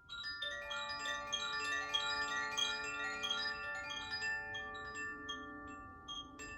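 Makino-style healing chimes played as a rapid run of many notes, struck one after another so they ring on and overlap in a shimmering wash. The notes come densely for the first four seconds or so, then grow sparser as the ringing dies away.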